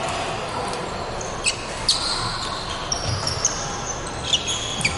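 Badminton rally on a wooden indoor court: several sharp racket strikes on the shuttlecock and squeaks of court shoes, over the steady background din of other games in a large hall.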